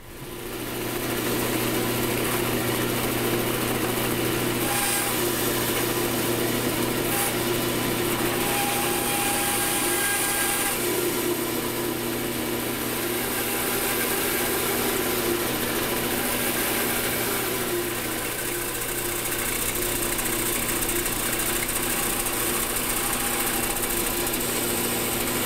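Bandsaw motor comes up to speed in the first second or so, then runs steadily while the blade nibbles a straight line sideways across the bottom of a wooden notch, shaving off very little at a time.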